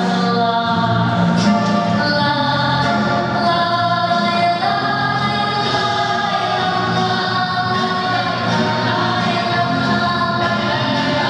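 Music: a choir singing long held notes over a steady low accompaniment.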